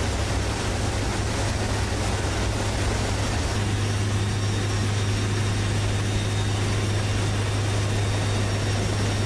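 Steady drone of a C-130's turboprop engines and rushing air inside the cargo hold in flight with the rear ramp open: a loud, even rush over a constant low hum.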